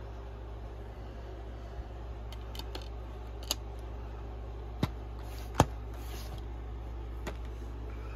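A few sharp clicks and taps from handling a DVD set's plastic disc trays and case, the loudest a little past halfway, over a steady low hum.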